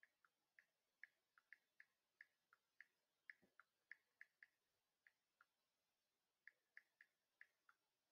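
Near silence with faint, sharp clicks at an uneven pace, about two to three a second, alternating between two slightly different pitches, and one faint low knock about halfway through.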